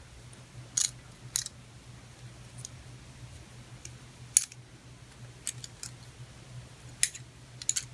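Scattered light metallic clicks and clinks of a small wrench working the nut on a video transmitter's SMA antenna connector, over a faint low hum.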